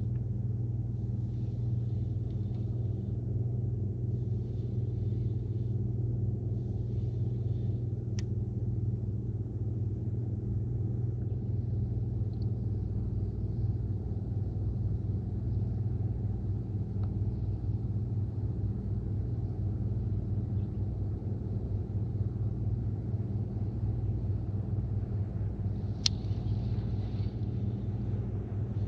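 Steady low mechanical drone of a running motor, holding one even pitch throughout, with a short sharp click about 8 seconds in and another about 26 seconds in.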